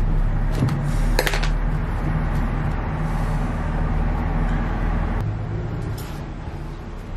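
A steady, engine-like hum and rumble, with a sharp click about a second in and a snip of scissors cutting jute rope about six seconds in.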